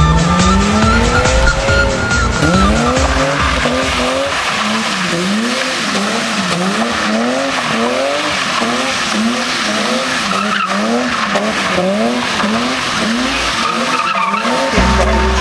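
BMW 325's straight-six engine revving hard while its rear tyres squeal and slide as the car drifts in circles. After one long rising rev at the start, the engine note swells up and down in a steady rhythm, about one and a half surges a second, over continuous tyre squeal.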